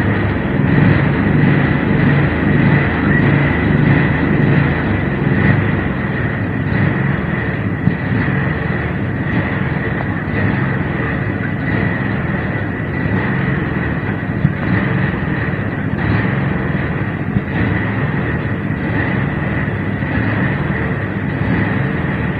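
A steady motor drone: a low rumble with a constant high whine, running without a break.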